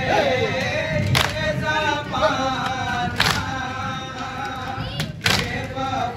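Men chanting a Shia nauha (Muharram lament) together, with a sharp slap about every two seconds from the mourners' chest-beating (matam) keeping time.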